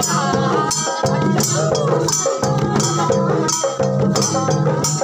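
Group folk singing to a long wooden barrel drum beaten in a steady rhythm, with a jingling, shaker-like percussion sounding on the beat.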